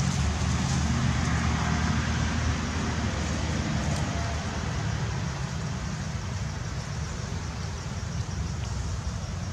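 Steady low rumble of motor traffic with an even hiss of road noise, fading slightly toward the end.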